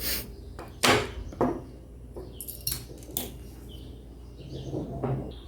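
Sharp clicks and taps of small plastic and metal parts as a cleaned GT 730 graphics card's cooler is fitted back together, about five separate knocks with a short hiss near the middle.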